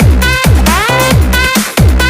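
Electronic dance music with a steady kick-drum beat about twice a second and gliding synth sweeps.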